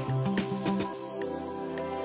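Background music: instrumental with a beat that drops out about halfway through, leaving sustained notes.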